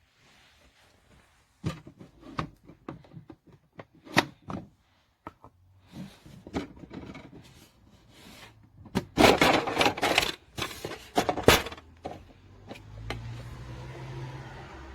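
An automatic wet-food cat feeder being handled: irregular clicks, knocks and scrapes, with a loud cluster of clattering about nine to eleven seconds in, then a low steady hum near the end.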